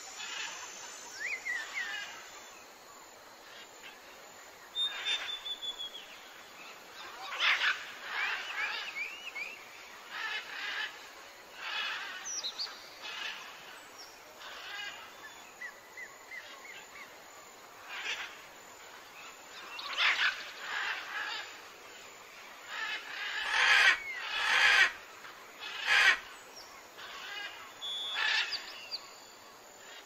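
Birds calling in forest: a scatter of short chirps and whistled notes that glide up and down, with several louder bursts, the loudest ones late on.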